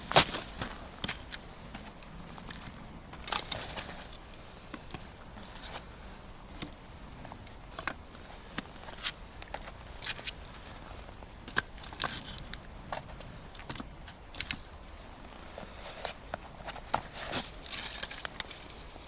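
Dry firewood being broken and handled for a campfire: irregular snaps and crackles, with several louder crunching rustles.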